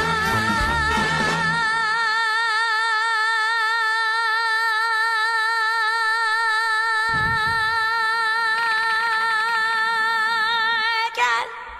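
A woman singing one very long held note with steady vibrato over a show-tune band. The band drops out after about a second and a half, leaving the note almost alone, then comes back softly partway through. The note breaks off near the end.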